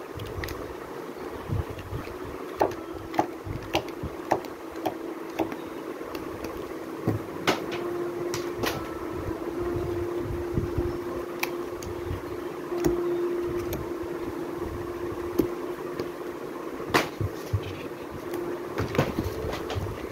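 Children's board books and paperbacks being handled in a cardboard box: irregular taps and knocks as books are picked up, flipped open and set back down. A steady background hum runs underneath.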